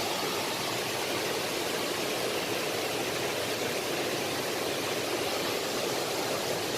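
Mountain stream water rushing over rocks: a steady, even rush.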